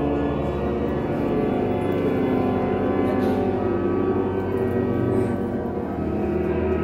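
Church bells ringing continuously, a dense, steady mass of overlapping bell tones echoing through the church.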